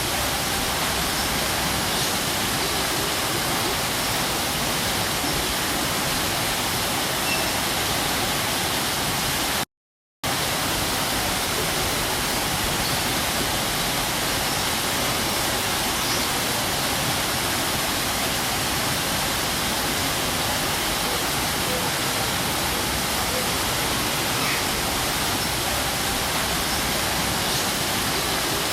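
Waterfall rushing with a steady, even hiss of falling water. The sound cuts out completely for about half a second around ten seconds in, then returns unchanged.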